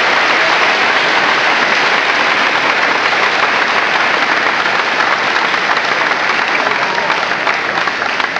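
Audience applauding steadily, with voices mixed in, beginning to die down near the end.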